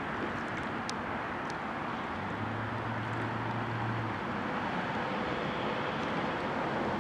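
Steady outdoor background noise, with a low steady hum for about two seconds in the middle and a few faint ticks about a second in.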